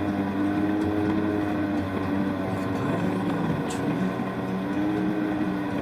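Jet ski engine running steadily, its drone wavering slightly in pitch.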